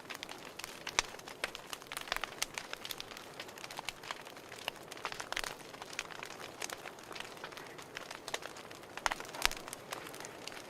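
Fireplace fire crackling: irregular sharp pops and snaps over a soft, steady hiss.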